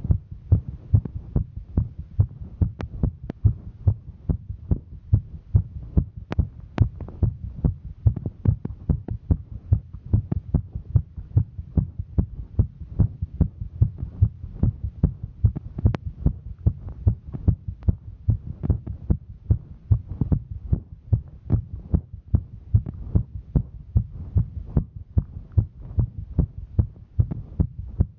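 A woman's heartbeat heard close up: regular thudding beats over a low hum, the heart working under the exertion of hiking. A few faint clicks sound over it.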